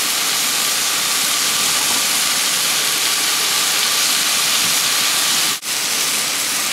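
Stir-fry vegetables (cabbage, onions, peppers) sizzling in a frying pan over a Primus Firehole 100 propane camp stove: a steady hiss that breaks off for a moment about five and a half seconds in.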